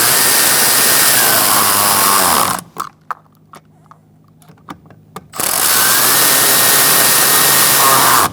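Cordless power driver with a 7mm socket running twice, driving in two door-panel bolts, a few seconds each, with light clicks of handling between the two runs.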